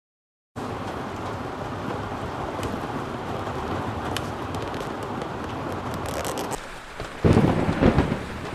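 Steady rushing noise of wind buffeting the microphone outdoors, with a few faint taps, starting abruptly about half a second in and swelling into a louder gust about seven seconds in.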